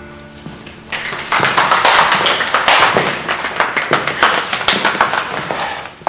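A small group applauding, starting about a second in.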